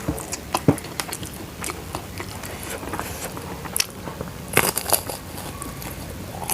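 Close-up biting and chewing of crunchy food: a run of sharp crunches and crackles, with the loudest burst of crunching about four and a half seconds in.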